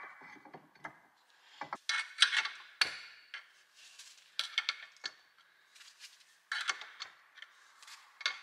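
A steel screwdriver scraping and clinking against the steel parts of a tractor steering box as its broken-up ball bearing is worked loose, in three short bursts of sharp metallic clicks with a brief ring, about two, four and a half, and six and a half seconds in.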